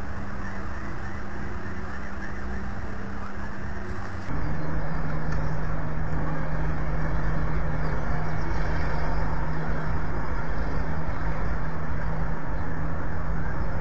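Steady outdoor rumble and hiss from a peregrine nest-cam's microphone, with a constant low electrical hum. About four seconds in the sound jumps louder and the hum drops slightly in pitch as the feed switches cameras.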